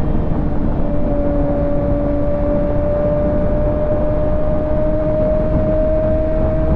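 Kawasaki ZX-6R 636 inline-four engine running at highway speed, its note steady and rising slowly as the bike gently gains speed, under heavy wind and road rush.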